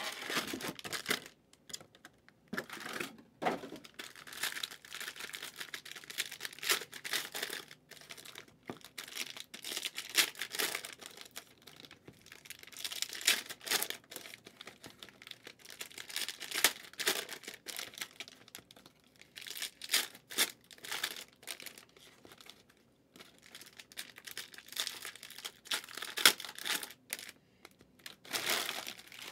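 Cellophane wrappers of trading-card packs being torn open and crinkled by hand, in irregular bursts of crackly rustling.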